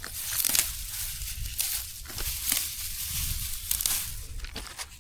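Dry grass being pulled and crumpled by hand for tinder: irregular crackling rustles and tearing.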